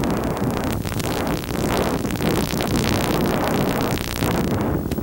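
Wind rushing and buffeting over the onboard camera microphone of a low-flying FPV model plane, a rough, hissy rush.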